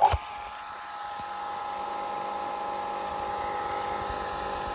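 Electric water pump switching on, then running with a steady hum of several held tones while pulling water, drawing about 1,190 watts.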